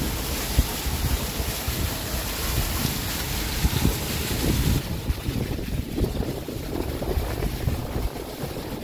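Heavy rain pouring down, with wind buffeting the microphone in a low, uneven rumble. The high hiss softens about five seconds in.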